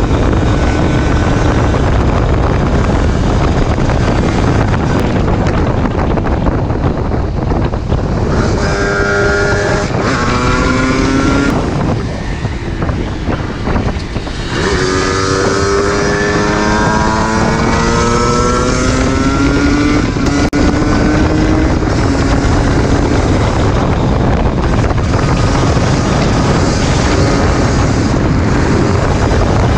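Yamaha DT 125 two-stroke single-cylinder engine being ridden and revved. It climbs in pitch about nine seconds in and eases off briefly near the middle, then climbs again in a long rising run. Heavy wind noise on the microphone runs under it.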